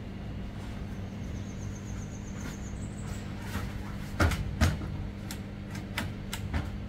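Two loud knocks about four seconds in, then several lighter knocks and clicks, from a man moving about on a corrugated sheet roof with a long hooked fruit-picking pole, over a steady low hum.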